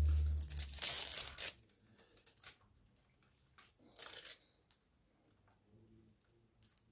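Nylon zip tie being pulled tight, its ratchet zipping in a long burst over the first second and a half and a shorter burst about four seconds in.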